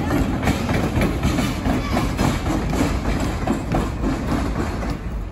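Train running on the tracks with repeated wheel clicks over a steady rumble, growing slightly quieter near the end.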